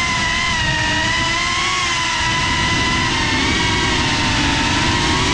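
GEPRC CineLog35 cinewhoop's four brushless motors and ducted propellers whining steadily, the pitch wavering slightly up and down with the throttle. Heard from the GoPro mounted on the drone, under a rough low rush of wind and prop wash.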